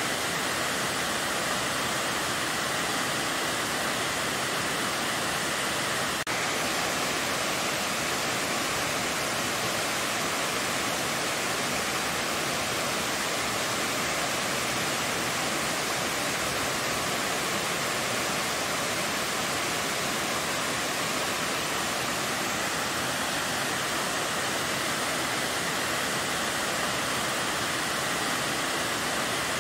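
Waterfall cascading down a steep rock face: a steady, even rush of falling water.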